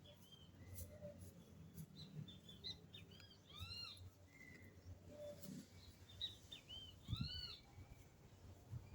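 Great kiskadee (bem-te-vi) calling faintly: short arched calls among scattered chirps, the clearest ones about four seconds in and again about seven seconds in.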